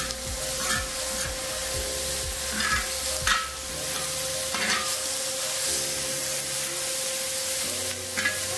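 Diced pork sizzling on a hot steel discada cooking disc with no oil added, under a steady hiss, while a spatula stirs and scrapes the meat across the disc in short strokes every second or two.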